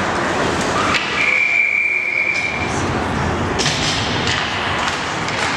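Hockey referee's whistle blown once about a second in, a single steady shrill tone lasting about a second and a half, signalling a stoppage of play. A sharp knock comes just before it, over the steady background noise of the rink.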